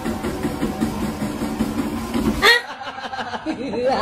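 Walking-pad treadmill motor running steadily while a cat walks on the moving belt. About two and a half seconds in it cuts off abruptly, and a wavering, laughter-like voice follows.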